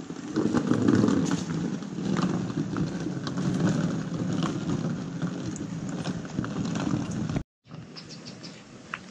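Wheeled suitcase rolling over a concrete path, a steady rumble with small clattering clicks from the wheels. It cuts off abruptly near the end and comes back fainter.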